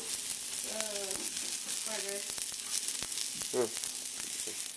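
Food sizzling steadily in a hot frying pan, with a few light clicks of a utensil against the pan.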